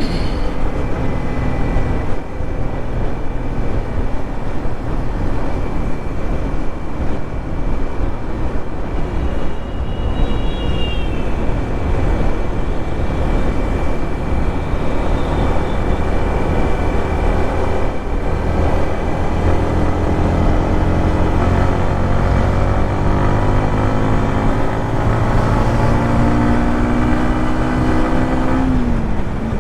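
Yamaha MT-15's 155 cc single-cylinder engine and exhaust running under way, over a heavy rush of wind noise. From about two-thirds of the way through, the engine note climbs steadily as the bike accelerates, then drops sharply near the end.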